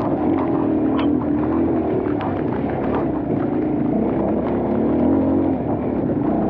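Kawasaki KLX230's single-cylinder four-stroke engine running as the bike rides a rutted dirt trail, its revs rising and falling with the throttle. Scattered short knocks and clicks come through as the bike bounces over the ruts.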